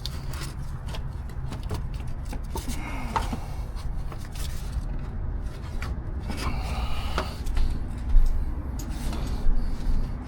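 A replacement alternator scraping, rubbing and knocking against surrounding metal and hoses as it is worked up into place in a VW Atlas engine bay, with irregular clicks over a steady low rumble.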